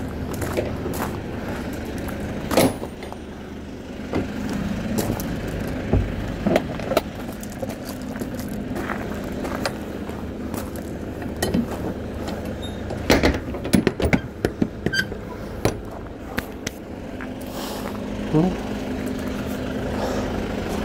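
A vehicle engine idling with a steady low hum, under scattered sharp clicks and knocks, with a cluster of them about two-thirds of the way in.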